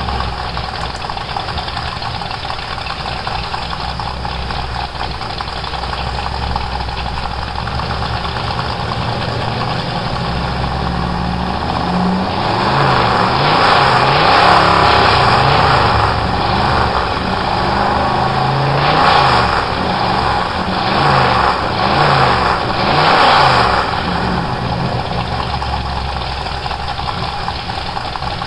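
1940s Ford rat-rod pickup's engine idling loudly through a straight-pipe stack exhaust, then revved: one longer rev about halfway through, followed by four short blips of the throttle, before it drops back to idle.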